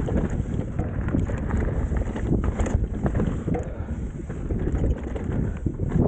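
Mountain bike descending a trail at speed: wind buffeting the microphone over a steady rumble of tyres on dirt, with many quick knocks and rattles as the bike hits bumps.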